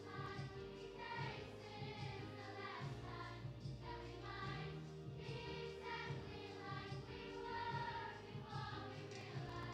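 Massed children's choir singing in unison with instrumental accompaniment, with sustained low notes under the voices.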